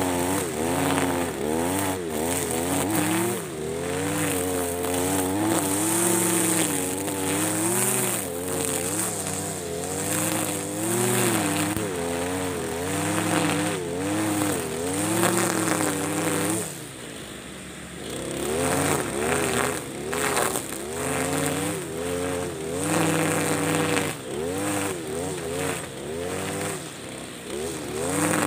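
Husqvarna 542RBS backpack brush cutter's 42 cc two-stroke engine running at high revs while its square nylon line cuts tall grass, the pitch wavering up and down as the throttle and load change. About two-thirds of the way through it eases off briefly, then revs back up.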